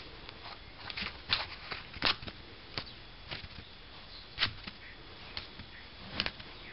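Cocker spaniel puppy chewing a cardboard tube: irregular crunches and crackles of the cardboard, with a few sharper ones.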